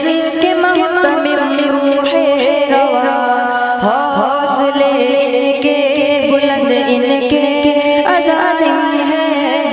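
Young boys' voices singing an Urdu tarana (Islamic devotional anthem), with a lead voice gliding between sustained notes over a steady held drone.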